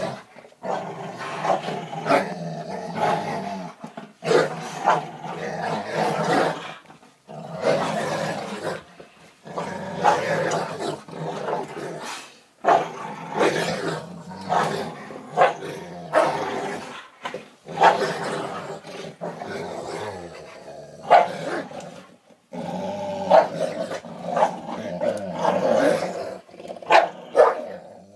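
Dogs growling in play while tugging on a rubber toy. The growls come in long rough runs with short breaks, and there are a few short sharp barks, mostly in the second half.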